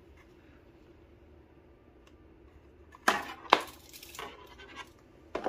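Sharp plastic clicks and light clatter from a robot vacuum's dustbin being handled: two loud clicks about three seconds in, then a few fainter ones.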